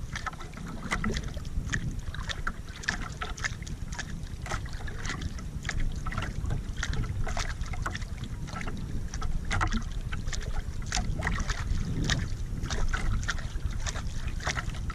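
Water lapping and splashing against a small outrigger canoe's hull in a steady run of irregular slaps, over a low rumble of wind on the microphone.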